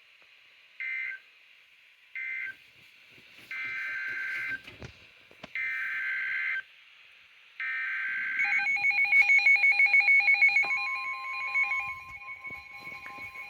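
NOAA Weather Radio Emergency Alert System tones: three short warbling data bursts that end the previous warning, then three longer bursts of the next warning's SAME header. About nine seconds in, a rapidly pulsing electronic alert beep starts, joined near the end by the steady 1050 Hz weather radio warning tone.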